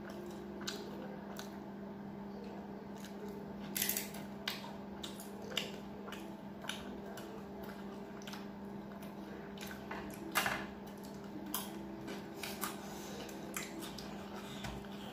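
Close-up eating sounds: a person chewing with wet mouth noises and irregular sharp smacks and clicks as food is taken by hand from a stainless-steel thali. A steady low hum runs underneath.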